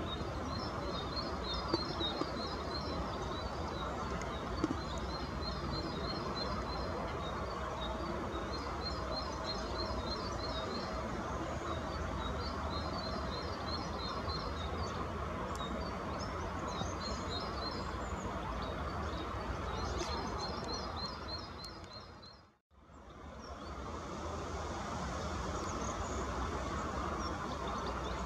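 European goldfinches twittering: repeated short runs of quick, high chirping notes over a steady background hum. The sound fades out briefly about three quarters of the way through and comes back, with fewer bird notes afterwards.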